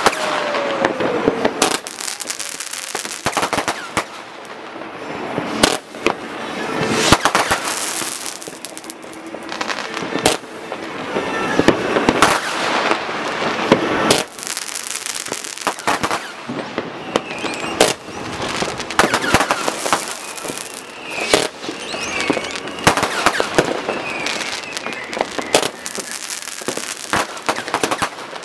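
New Year's Eve fireworks going off all over a town: a dense, irregular run of rocket and firecracker bangs with crackling, and whistling rockets now and then, one with a falling whistle at the start.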